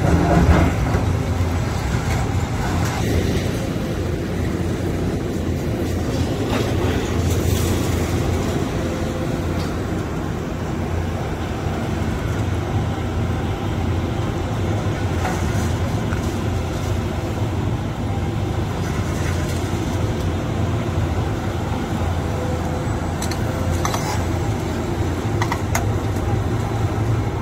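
Diesel engines of tracked excavators running steadily under load as they work collapsed-building rubble, with a few sharp knocks now and then.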